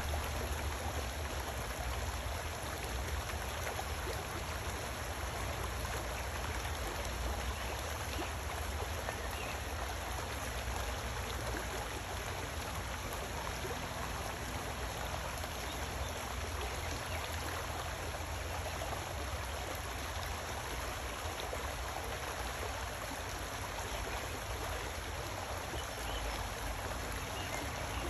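Shallow brook running steadily, its water rippling over the streambed in an even, unbroken rush.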